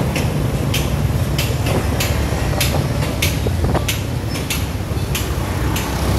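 Busy street traffic made mostly of motorbike and scooter engines running close by, a steady low rumble. Short, sharp ticks or rattles come irregularly over it, about two or three a second.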